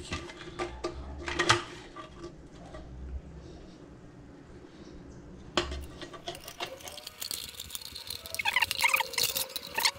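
Hand-held can opener working around the rim of a rusty old motor-oil can: scattered metal clicks and scraping, a sharp click a little past halfway, then a run of high squeaking near the end.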